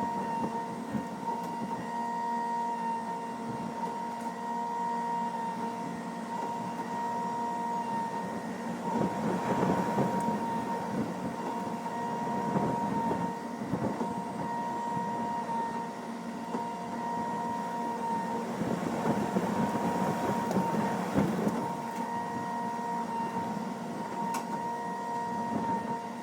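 A power trimming tool's motor running at a constant speed with a steady whine over a rough rattling noise, the noise swelling a little about a third and again about three quarters of the way through.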